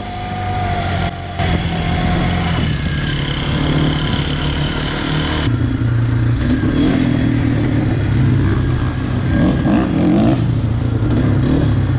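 Off-road motorbike engine running and revving, with the sound changing abruptly about five and a half seconds in.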